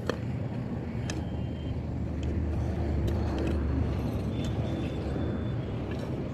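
A Powertrac Euro 50 tractor's diesel engine idling with a steady low rumble. Now and then a hoe knocks and scrapes in dry, stony dirt.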